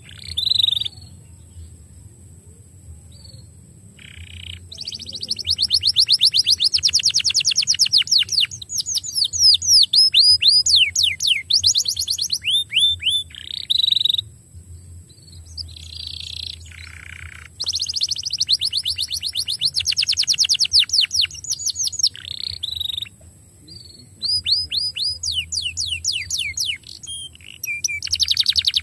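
Domestic canary singing: long phrases of rapid high trills and fast-repeated notes, broken by a few short pauses.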